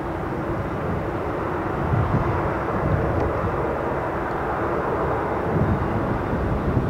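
Douglas DC-8-70's four CFM56 turbofan engines running at taxi power as the jetliner taxis past: a steady jet noise with a constant low hum through it.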